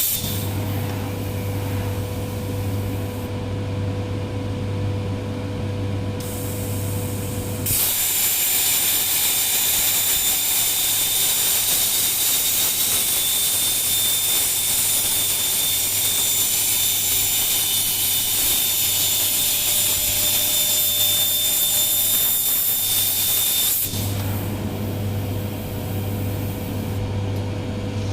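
CNC plasma cutting machine: a steady hum, then about eight seconds in the plasma arc fires and cuts with a loud, even, high hiss and thin whine for about sixteen seconds. The arc cuts off abruptly and the machine hum carries on.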